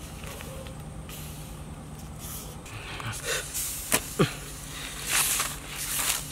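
Hard-shelled horned beetles rustling and clicking against a woven bamboo basket as hands stir through them, with sharp clicks and scratchy rustles starting about three seconds in. A low steady hum runs under the first half.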